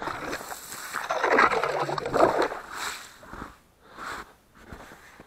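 Hand ice auger being cranked into a hole in the ice: its blades scrape and crunch through ice and slush for about three seconds, followed by a few shorter scrapes.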